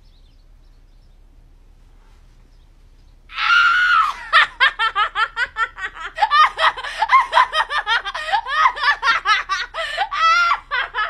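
Near silence for about three seconds, then a woman bursts into loud laughter: a high shriek, followed by rapid high-pitched laughs, several a second, that go on without a break.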